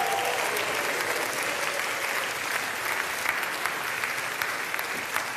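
Large audience applauding, a dense, steady clapping that thins out slightly near the end.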